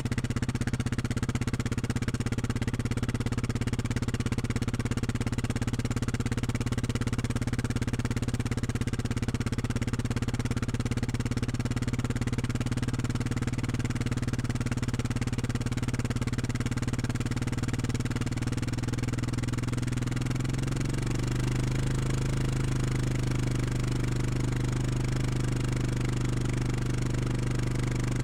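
Four-stroke utility ATV engine running steadily at low speed. About twenty seconds in its pitch drops slightly and then holds steady.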